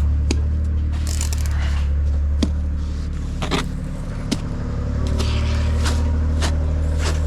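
A motor running steadily with a low hum that eases briefly about four seconds in, with scattered clicks and knocks over it.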